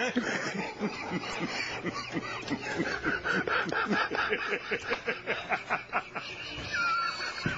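TV news anchors laughing helplessly, breathy snickers and chuckles coming in quick runs of short bursts.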